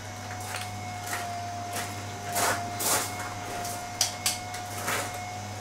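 Electric opener driving an up-and-over garage door open: a steady motor whine over a low hum, with a string of short irregular knocks and scuffs.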